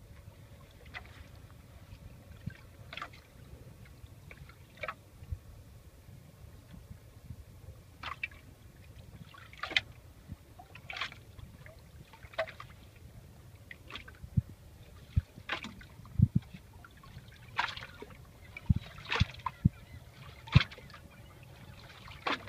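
Water lapping and sloshing against a small boat's hull, with many short, irregular splashes and drips.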